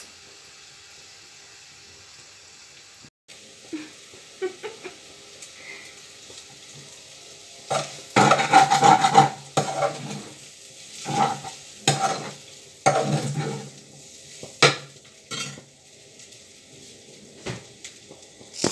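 Onions frying with a faint sizzle, then a spatula stirring and scraping in the metal pan in several loud strokes, with sharp clinks of the utensil on the pan near the end.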